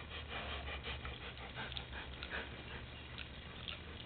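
Siberian husky sniffing and mouthing a whole raw whiting fish: irregular short wet clicks and snuffles.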